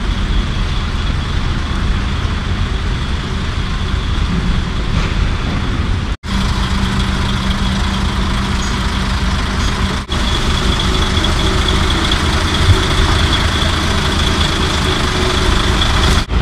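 Diesel engine of a DAF heavy-haulage tractor unit running steadily at idle. The sound drops out briefly twice.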